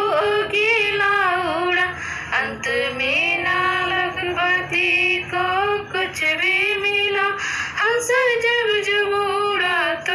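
A woman singing a Hindi devotional song (bhajan) solo in a high voice, with ornamented melody lines that slide between notes and short breaths between phrases.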